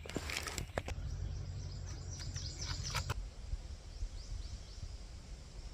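Small birds calling outdoors, runs of short, quick down-slurred chirps, with a few rustles in the first second and a low wind rumble on the microphone.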